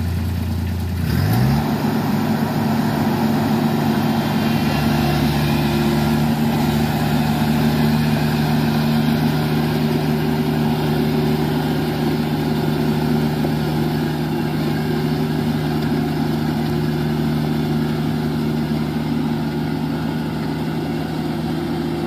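Tracked rice combine harvester's engine revving up about a second in, then running steadily at the higher speed as the machine moves off through the paddy.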